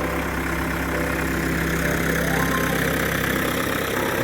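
Backhoe engine idling steadily.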